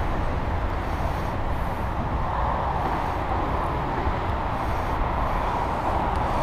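Steady rushing noise of passing road traffic, swelling a little about halfway through.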